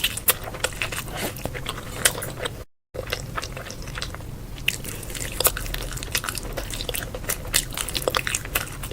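Close-miked person chewing and biting food, with many sharp crunchy and wet mouth clicks. The sound cuts out for a moment just under three seconds in.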